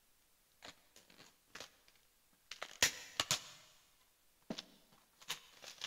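Cardboard box being opened and handled: a scattered series of short scrapes, taps and rustles, the loudest cluster about three seconds in.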